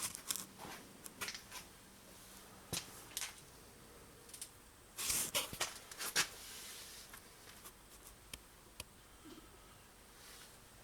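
Scattered clicks and rustles of car interior parts and tools being handled during a teardown, with a cluster of sharper clicks and a short rustling burst about five to six seconds in.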